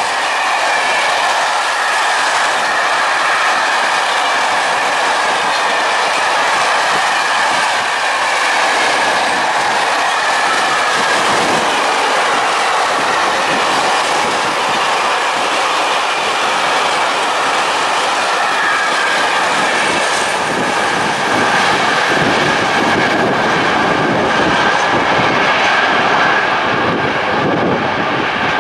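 Freight train of mixed wagons (stake flat wagons, car carriers, tank and open wagons) rolling past: steady wheel-on-rail clatter with a steady high squealing tone over it. The sound swells in the last few seconds as the final wagons pass, then falls away at the very end.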